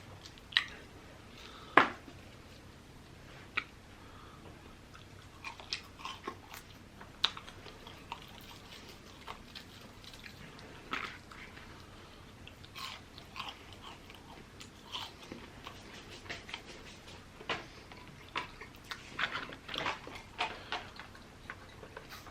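Close-miked eating: a person chewing and biting food, with irregular wet smacks and crunchy clicks. The sharpest click comes about two seconds in, and the mouth sounds grow busier near the end.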